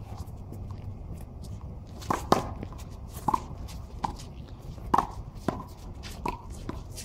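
Sharp smacks of a small rubber handball struck by hand and bouncing off the concrete wall and floor in a rally: about eight knocks in irregular succession, starting about two seconds in, over a steady low rumble.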